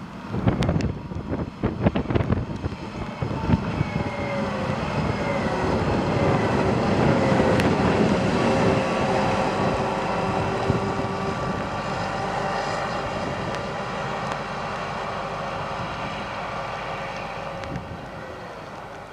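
Heavy diesel engine of an excavator running, its pitched drone gliding down and then holding steady as it grows louder, peaking about halfway and slowly fading away. Wind buffets the microphone in the first few seconds.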